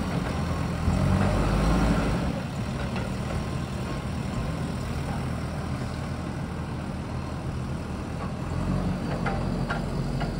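JCB backhoe loader's diesel engine running steadily. It eases off a couple of seconds in and picks up again near the end, with a few faint knocks.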